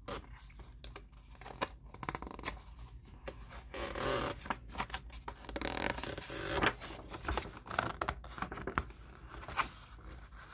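Paper pages of a picture book being handled and turned by hand: irregular rustling and scraping of paper with small clicks and taps, the louder rustles coming as the page is lifted and turned over.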